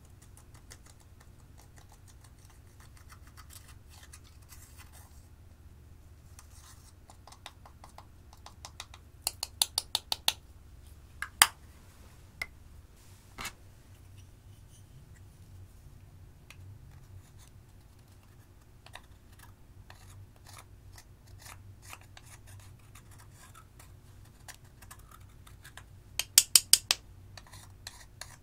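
A thin tool scraping and picking pressed eyeshadow out of its compact pan: faint gritty scratching, with a quick run of sharp taps about a third of the way in, a few single clicks after it, and another run of loud taps near the end.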